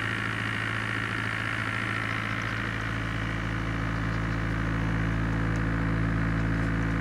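Steady hum of a car running, heard from inside the cabin: an even engine drone with a constant low tone and a hiss on top, growing slightly louder in the second half.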